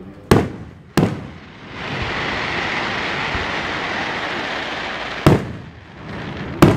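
Aerial firework shells bursting: four sharp bangs, two in the first second and two near the end, with a steady hiss lasting about three seconds between them.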